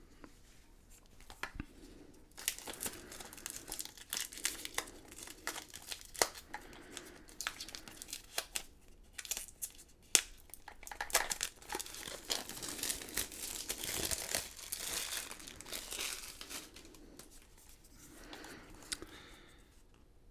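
Plastic wrapper being torn open and crinkled by hand, an irregular crackling rustle with sharp snaps that starts about two seconds in and dies down near the end.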